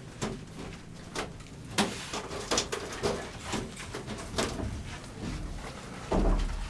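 Irregular knocks and clatters of building work, about one or two a second, with a heavier thump near the end.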